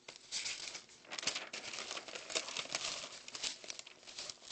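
Paper cards being handled and shuffled near the phone's microphone, rustling and crinkling in an irregular run of crackles.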